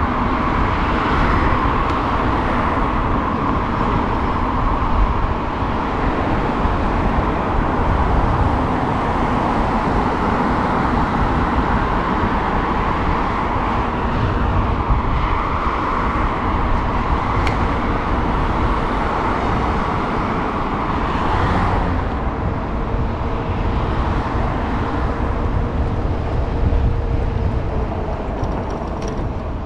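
City street traffic noise heard from a moving bicycle, with a steady low rumble of wind on the microphone.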